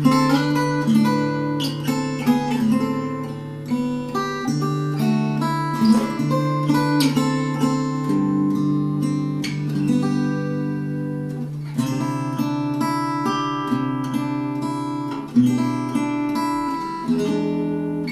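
K.Yairi MYT-1 compact acoustic guitar (solid cedar top, mahogany back and sides) played fingerstyle: a picked melody over ringing bass notes, with a few sharper accents, the loudest about 15 seconds in.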